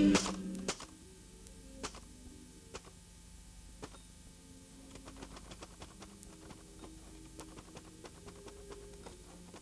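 Music cuts off just after the start, leaving faint, irregular clicking and ticking over a low steady hum.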